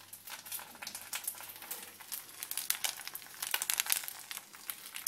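Irregular crackling and rustling close to the microphone while food is handled over a pan of pasta.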